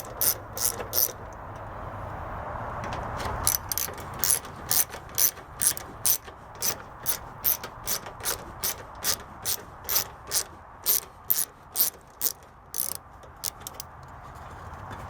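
Hand ratchet clicking in steady strokes, about two clicks a second, as a headlight mounting screw is backed out. The clicking pauses for a couple of seconds near the start, then runs on and stops shortly before the end.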